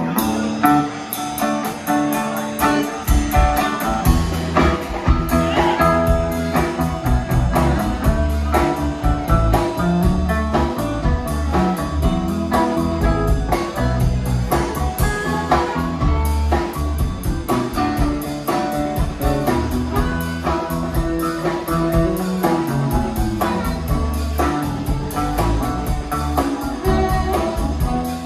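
Live blues-rock band playing an instrumental passage: electric guitar, electric bass, drum kit and keyboards, with a harmonica played into a microphone.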